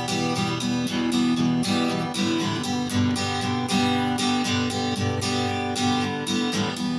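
Acoustic guitar strumming chords in a steady rhythm, playing an instrumental passage of the song.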